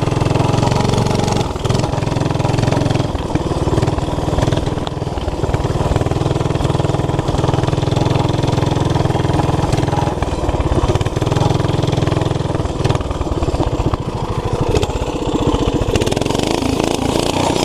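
Mini bike's single-cylinder 5 hp Briggs & Stratton flathead engine, governor removed and running through a homemade header, being ridden with the revs rising and falling as the throttle is worked.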